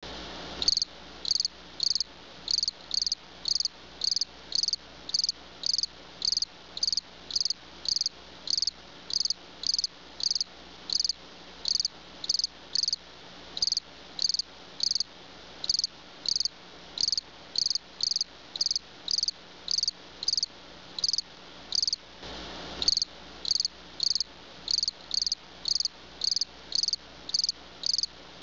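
An insect chirping in a steady, even rhythm, about three short high chirps every two seconds, with a brief break in the rhythm near the end.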